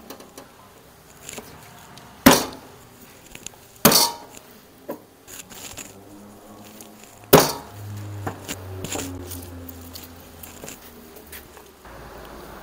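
Three sharp knocks of kitchen utensils, with lighter clicks and clinks between them. A low hum comes in after the third knock and fades a couple of seconds later.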